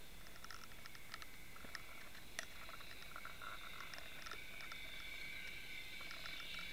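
Faint underwater ticking and crackling picked up by a submerged camera: scattered sharp clicks, with one stronger click a little past the middle. A steady high whine and hiss grows louder near the end.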